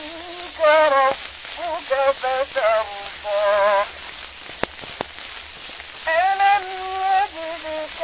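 A reciter's voice chanting the Quran in melodic tilawat, in ornamented, wavering phrases with short pauses between them. Heavy hiss and crackle of a very old, worn recording lies under it, with two sharp clicks about halfway through.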